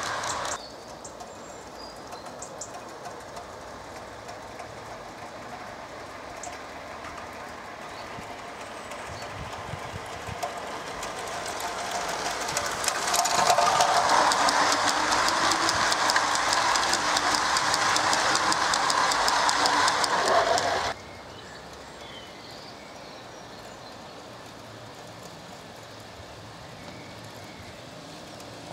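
Gauge 1 model coal wagons rolling along garden railway track, the wheels clicking steadily over the rail. The sound grows louder as the train comes close and passes, then cuts off suddenly about two-thirds of the way through, leaving a quieter background.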